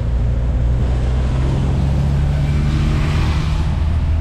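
Minibus engine running steadily while under way, heard from inside the passenger cabin with road noise, and a swell of hiss about three seconds in.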